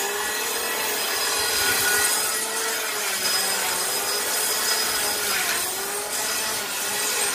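A hand-held power tool cutting timber boards: a steady motor whine that sags slightly in pitch several times as the blade takes the load, over a rasping cutting noise.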